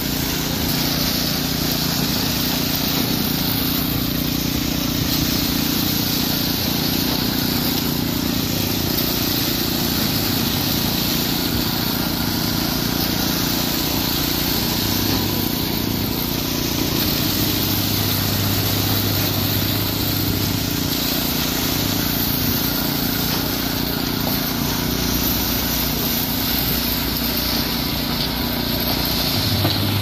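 Engines running steadily on a concrete pour: the concrete pump pushing concrete through the hose, and the small petrol engine of a concrete poker vibrator compacting the fresh concrete.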